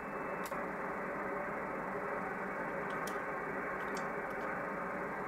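HF transceiver's speaker giving a steady rushing hiss of band noise with no signals on it, while its band keys are pressed to step down from 20 meters to 80 meters; a few sharp clicks from the band change, one about half a second in and several around three to four seconds in.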